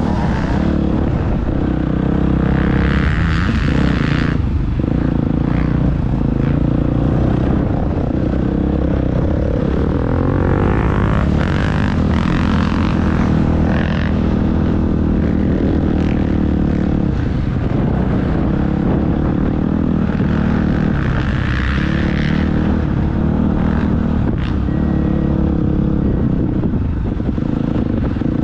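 Motocross bike engine running hard, its revs rising and falling as it is ridden around a dirt track, heard close up from on board the bike.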